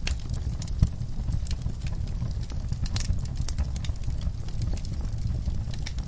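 Fire in a firepit crackling, with frequent irregular snaps and pops over a steady low rumble, and one heavier knock a little under a second in.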